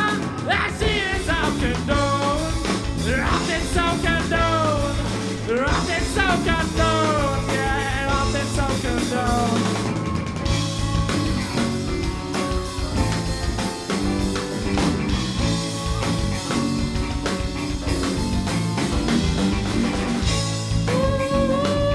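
Live rock band playing an instrumental passage: drum kit and bass under a lead line whose notes bend and slide.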